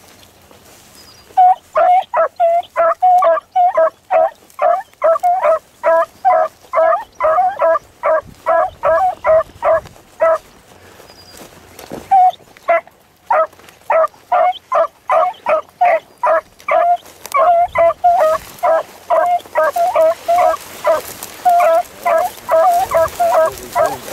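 Beagle hounds baying on a rabbit or hare track: short, rapid yelps, about three a second, that break off for a couple of seconds about ten seconds in and then pick up again. Near the end a steady hiss rises behind them.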